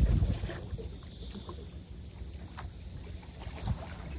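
Seaside ambience at a breakwater: a low rumble of wind on the microphone, strongest in the first half-second, over a steady faint wash of water, with a few faint clicks and a dull thump near the end.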